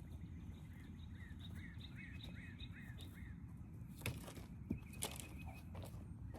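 A bird calling in a steady series of short, repeated chirps, about three a second, over a low outdoor rumble, with two sharp clicks about four and five seconds in.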